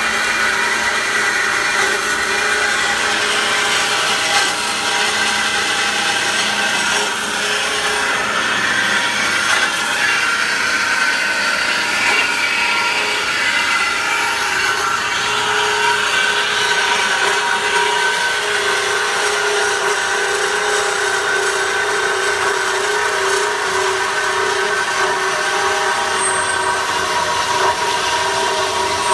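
Ellis horizontal metal-cutting bandsaw running and slowly cutting through a round metal tube: a steady motor hum with the blade rasping through the metal.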